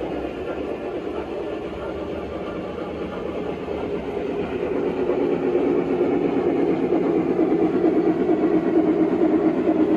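Three-rail O gauge model train running on the layout's track, a steady rumble of wheels and motor that grows louder from about four seconds in as it draws nearer.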